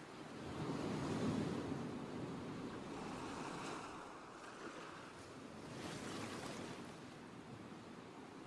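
Faint rushing sound of waves washing in, swelling about a second in and again about six seconds in.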